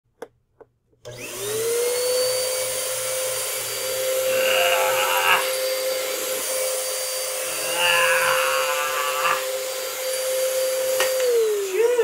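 Bissell bagless upright vacuum switched on about a second in, its motor whining up to a steady pitch and then switched off and winding down near the end. It is being shoved across carpet with its self-propel drive not working, which the owner puts down to a failed drive belt. Two short strained groans come from the person pushing it midway.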